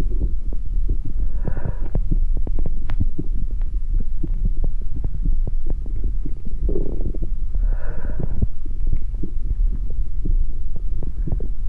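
Electroacoustic piece built from amplified heart sounds: a dense, steady low throbbing rumble scattered with many short crackling clicks. Two brief airy swells rise above it, about one and a half seconds in and again around seven to eight seconds in.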